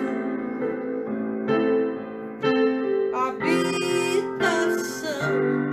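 Electric keyboard playing slow, held chords that change every second or so, accompanying a worship song.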